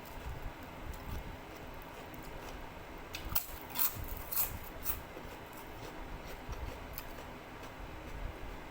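Close-up eating sounds: chewing, with a cluster of crisp crunches about three to five seconds in as something crunchy is bitten.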